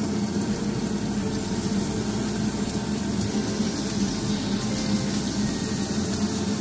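Chicken thighs sizzling in hot olive oil in a frying pan as they are laid in skin side down, a steady even frying hiss with a low hum underneath.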